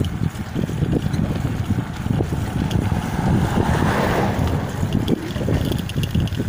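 Wind buffeting the microphone of a camera moving along a paved road, a steady low rumble with gusts. About four seconds in, a passing vehicle's tyre noise swells and fades.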